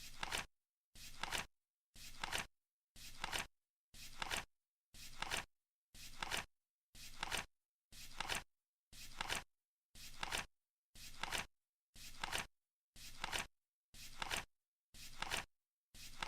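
Flip-clock timer flaps flipping once a second, a short clatter about half a second long each time, with silence between.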